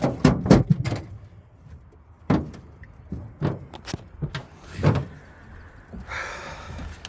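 A run of sharp knocks and thumps on a metal boat deck as a large paddlefish is handled and set down, the loudest in the first second, with a scraping rustle near the end.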